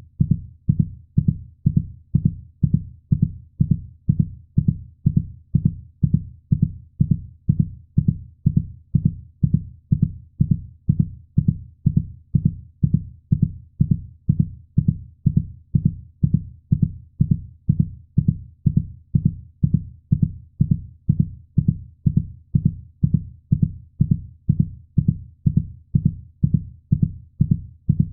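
Heartbeat: low, muffled thumps in a steady, even rhythm, about two a second, with no change.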